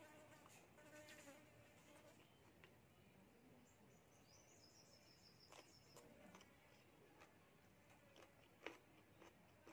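Near silence with a fly's faint buzz in the first second, then faint eating sounds: a soft noodle slurp and a few small clicks of chewing or a fork, and a faint high tone around the middle.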